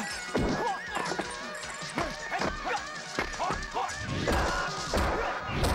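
Kung fu film fight-scene soundtrack: a rapid run of punch and kick hit effects over music, with heavier crashes in the last couple of seconds.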